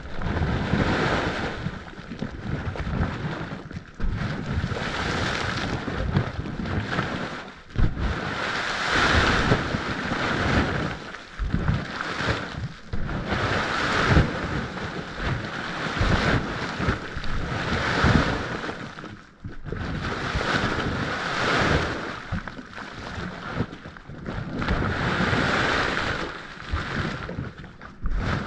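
Mud volcano venting steam from its crater: a rushing hiss that swells and falls back in surges about every two seconds, with low rumbling thumps.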